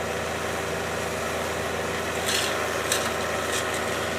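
Backhoe engine running steadily while the machine works dirt, with a few short hissing, scraping bursts past the halfway mark.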